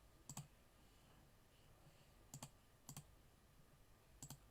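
Computer mouse clicking: four quick clicks, most of them doubled, spread over a few seconds against near silence.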